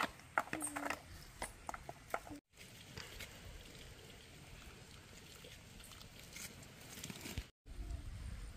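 Short animal calls among clicks and knocks, then steady faint outdoor background noise with occasional ticks; the sound drops out completely twice, briefly.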